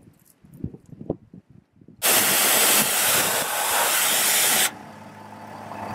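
Pressure-washer lance spraying water at a Land Rover's muddy front wheel: a loud, even hiss that starts abruptly about two seconds in and stops sharply a little under three seconds later. A quieter steady low hum follows. Before the spray there are only faint scattered ticks, like footsteps on grass.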